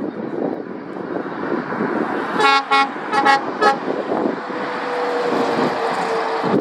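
A vehicle horn gives four short toots in quick succession, about two and a half seconds in, over the rush of passing road traffic and wind. A steady hum from a passing vehicle follows near the end.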